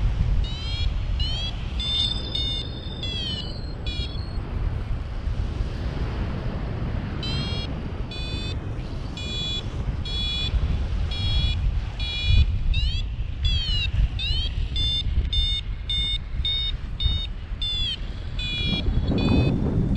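Paragliding variometer beeping in quick high chirps, about three a second, pausing for a few seconds after the first burst: the audio climb tone that signals the glider is rising in lift. Steady wind rush on the microphone underneath.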